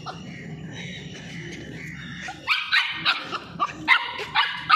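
A dog barking in a rapid run of short barks, about three a second, starting about halfway through.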